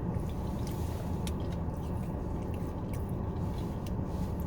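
Soft chewing and small wet mouth clicks of someone eating, over a steady low hum inside a car.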